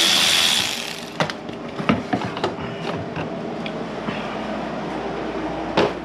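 A power driver whirring as it spins out a T25 Torx screw, stopping under a second in. Then a few sharp clicks and light knocks of small metal and plastic parts being handled.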